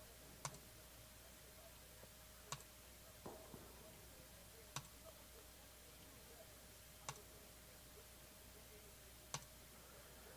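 Computer mouse clicking five times, about every two and a third seconds, over near silence, as a list is re-randomized click by click.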